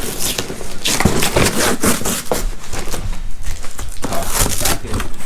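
Cardboard shipping box being opened by hand: irregular scraping, rubbing and rustling of cardboard.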